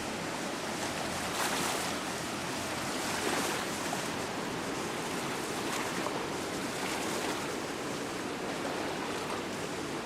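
Floodwater pouring over the Ada Dam on the Thornapple River, a steady rush of water with small swells in level. The river is running at flood height.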